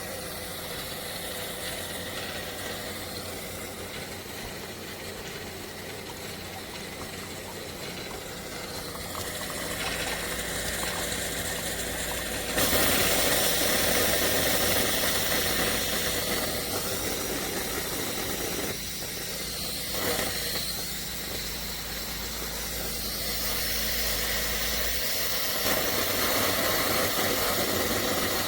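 Hamilton Beach FlexBrew Trio coffee maker brewing: a steady hum with hissing steam, which gets suddenly louder about halfway through.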